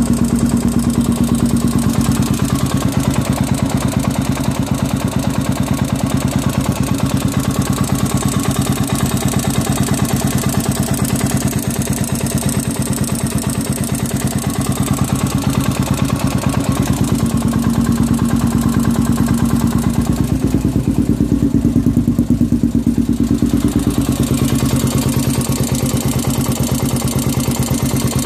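Honda 400EX's single-cylinder four-stroke engine idling steadily, with a knocking, ticking noise that the owner places in the bottom end after a rebuild.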